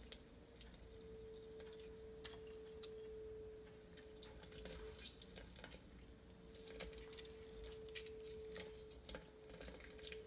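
Lemons being squeezed by hand into a blender jar of strawberry purée: faint scattered drips and small clicks, with a faint steady hum that breaks off a few times.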